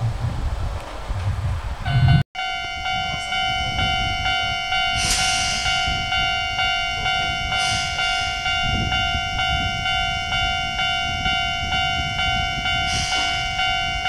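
Japanese railway level-crossing warning bell ringing in a fast, even repeating beat as a train approaches. It starts about two seconds in.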